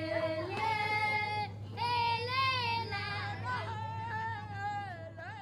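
A high voice singing a slow melody without accompaniment, long held notes that waver and bend, with short breaks between phrases, over a steady low hum.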